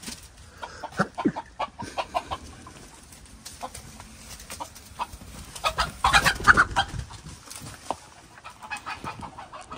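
Chickens clucking in short, scattered calls, with a louder, noisier burst of calls about six seconds in.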